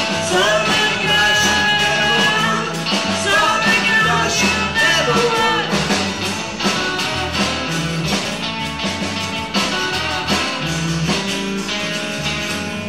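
Live rock-and-roll band playing: strummed acoustic guitar, electric bass and drums, with a man singing through the first half or so. The music starts to die away near the end.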